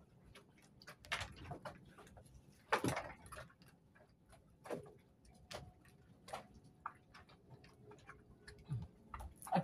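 Irregular light clicks and taps from fishing tackle being handled on a wooden platform, with a few louder knocks in between.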